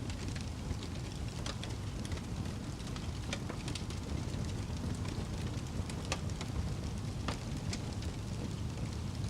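Wood fire burning with a steady low roar and scattered sharp crackles and pops.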